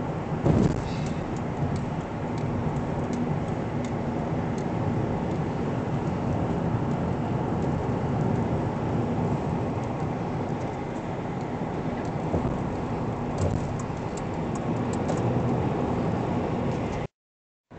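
Steady road and engine noise inside a moving car's cabin at highway speed, with a single thump about half a second in. The sound cuts out suddenly near the end.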